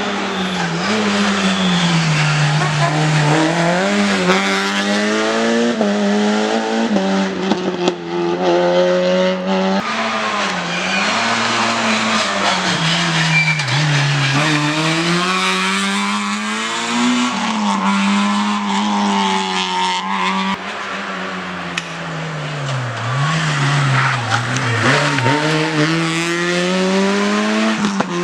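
Rally car engine running hard, its note rising and falling again and again as it revs up, lifts off and shifts gear.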